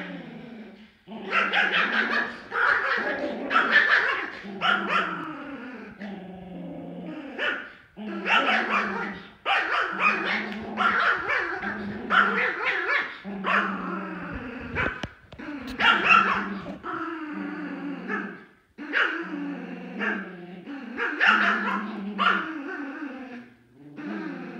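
Two small dogs growling and barking in play while tugging over a toy, in repeated bouts of a second or two with short breaks between.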